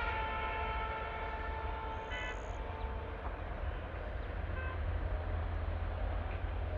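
A long steady horn blast, one held chord of several tones, that cuts off about three seconds in, over a steady low rumble.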